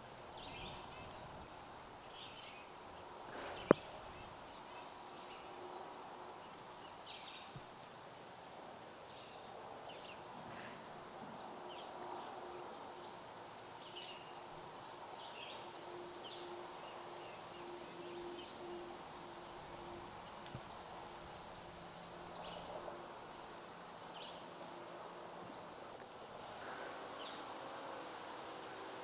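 Wild birds calling: scattered short high chirps and whistles throughout, with a fast high trill from about two-thirds of the way in. One sharp click a few seconds in is the loudest sound.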